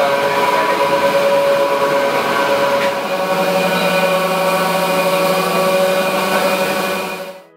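Vertical machining center spindle running at speed with its bearing making noise: a steady whine of several tones over a rough hiss, the sign of a worn spindle bearing that needs replacing. It cuts off sharply near the end.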